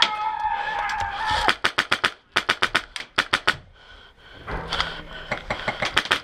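Airsoft guns firing in several quick bursts of sharp snapping shots, about seven a second, with short pauses between bursts. A brief held pitched call sounds over the first second or so.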